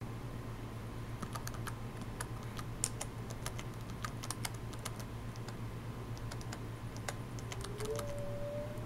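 Computer keyboard typing: irregular key clicks as letters are typed one at a time, over a low steady hum. Near the end a single held note slides up and then holds.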